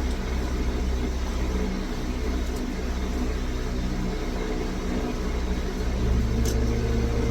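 Steady low mechanical hum, with two faint light clicks about two and a half seconds in and near the end as small pin-tumbler pins are set into a Kwikset lock plug.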